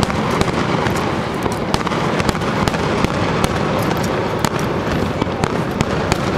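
Fireworks finale: a dense, continuous barrage of shells bursting, with many sharp crackles and bangs over a steady rumble.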